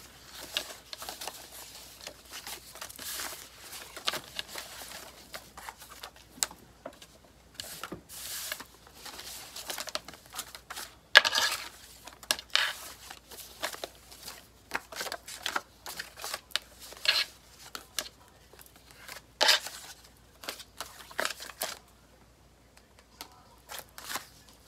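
Paper index cards and folded paper slips being handled, shuffled and unfolded on a wooden table: irregular rustling and crinkling with sharp snaps, the loudest a sharp snap about eleven seconds in.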